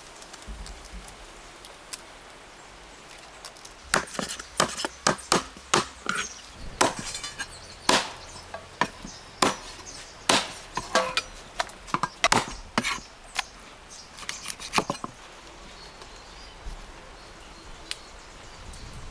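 Meat cleaver chopping a cooked whole chicken into pieces: a run of sharp, irregular chops that starts about four seconds in and stops about fifteen seconds in.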